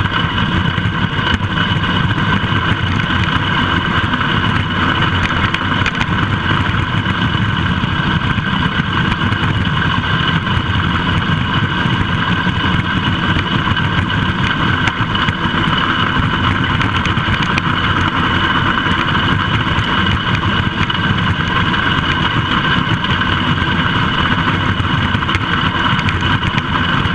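Allis-Chalmers B tractor's four-cylinder engine running steadily under load while its steel drag harrow scrapes and rattles over loose gravel close by.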